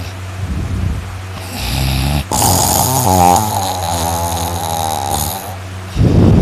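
A person snoring loudly: a long, rough, pitched snore lasting a few seconds, then a short, harsh burst of breath near the end.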